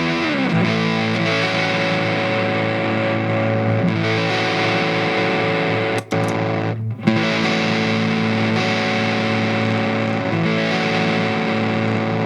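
Electric guitar played through a transistor fuzz pedal: long, sustained distorted notes that change a few times, with a slide down near the start. The sound breaks off briefly about six seconds in, and a new note is struck about a second later.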